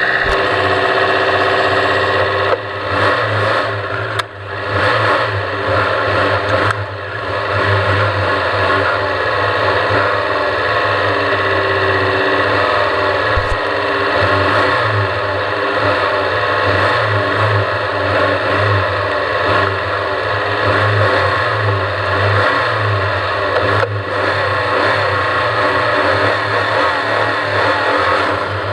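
Off-road race vehicle's engine running steadily, with a few knocks and jolts between about three and seven seconds in.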